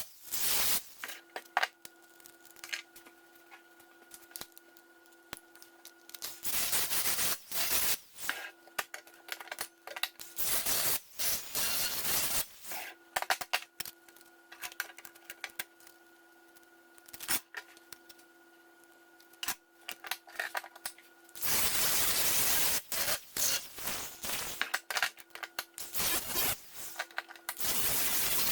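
Thin aluminum sheet being cut and worked with hand tools. Irregular clicks, crackles and scrapes, with a few longer stretches of harsh rasping noise, the longest about two thirds of the way through. A faint steady hum is heard in the quieter gaps.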